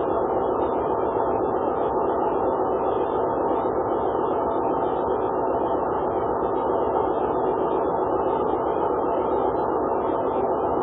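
Steady, even hiss from a Dropcam home camera's microphone, with no distinct sounds standing out.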